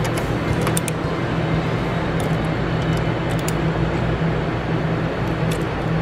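A ratchet wrench tightening a motorcycle's front brake caliper bolt gives a few short clusters of clicks. Under them runs a steady low hum.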